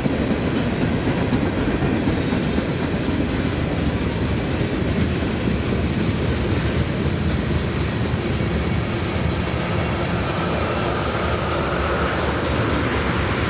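Freight cars, mostly tank cars, rolling past: the steady rumble of steel wheels on the rails. A faint whine comes in toward the end.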